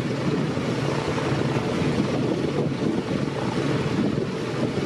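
A small single-engine light aircraft's propeller engine runs steadily at low power while taxiing, with wind buffeting the microphone.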